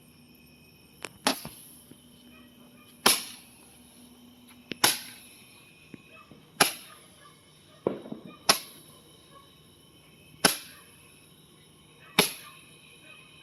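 A small handheld firework shooting out balls of colour, each shot a sharp pop. About eight shots come one and a half to two seconds apart.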